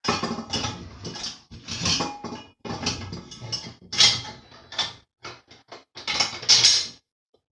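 Steel mounting parts clanking and rattling in quick, irregular knocks as a bolt is fitted through a drill press stand and its hitch-receiver wall mount. The clatter stops abruptly near the end.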